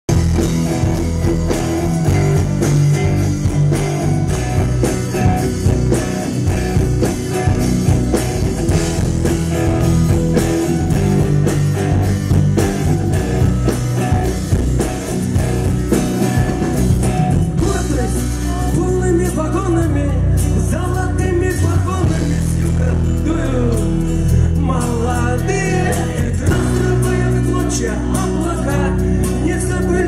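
Rock band playing live through a stage PA: drums, bass and guitars, with a man's singing coming in a little past halfway.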